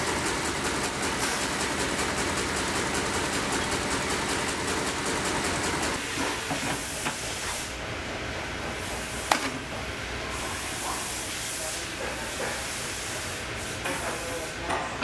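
Steady hissing noise, loudest for the first six seconds, then lower and patchier with a few knocks and a single sharp click about nine seconds in.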